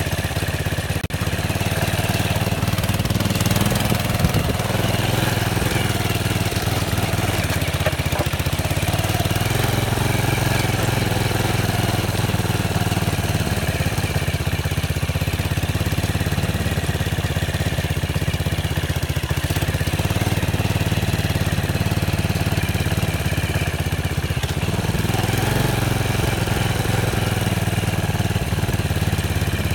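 ATV engine running steadily at an even, low engine speed.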